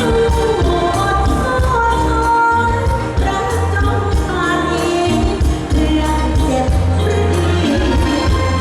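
Live Thai luk thung band music: a singer holds a gliding melody over heavy bass and a steady drum beat.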